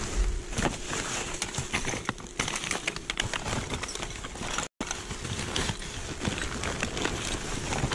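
Plastic trash bags and wrappers rustling and crinkling in quick, irregular crackles as gloved hands dig through a dumpster. The sound cuts out for an instant a little past halfway.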